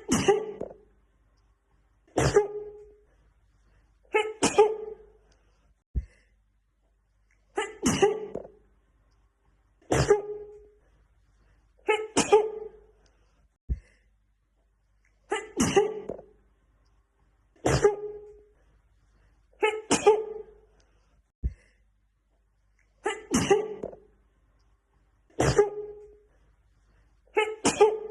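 A woman sneezing over and over, one loud sneeze about every two seconds, from a short clip looped end to end: three sneezes, then a brief click as the loop restarts.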